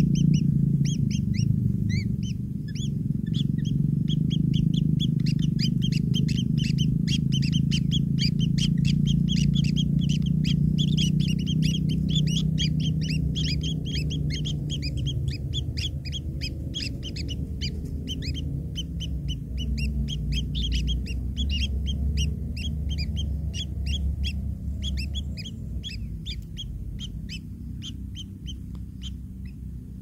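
White-throated kingfisher nestlings begging in their burrow nest: a rapid run of short, high chirps, several a second, thinning out over the last few seconds. A steady low rumble runs underneath.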